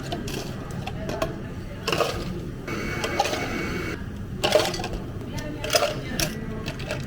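Cafe counter work sounds: scattered sharp clicks and knocks of cups, utensils and equipment over a steady low hum, with a brief hiss about three seconds in, and faint speech-like murmur underneath.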